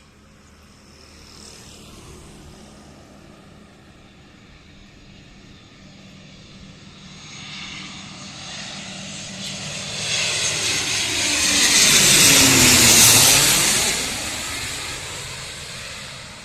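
CASA C-295 twin turboprop flying past, its propeller and engine sound growing louder, peaking about twelve seconds in, then fading with the pitch dropping as it goes by.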